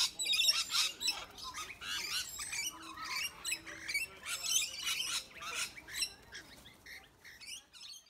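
A flock of parrots, sulphur-crested cockatoos and rainbow lorikeets, squawking and screeching in many short, harsh, overlapping calls, fading near the end.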